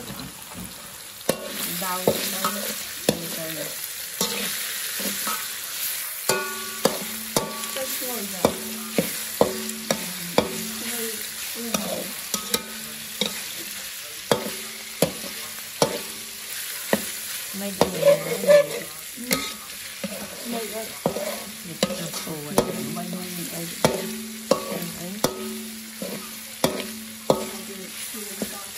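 Metal spatula scraping and striking a steel wok as pork pieces are stir-fried in oil, under a steady sizzle. The strikes come more than once a second and leave the wok ringing briefly.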